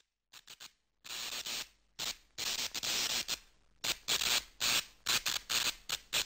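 Old-TV static sound effect for an intro: irregular bursts of hiss, some short crackles and some lasting about half a second.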